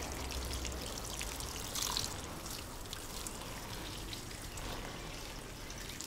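Water being poured onto garden soil to water a freshly planted seedling: a steady trickle with a brief louder splash about two seconds in.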